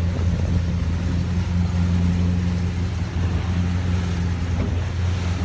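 Motorboat engine running at a steady speed, an even low drone with water and wind noise over it.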